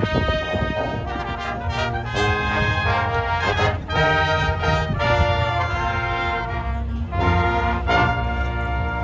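Marching band playing: brass (trumpets, trombones, sousaphones) holding full sustained chords, with bass drum and percussion hits.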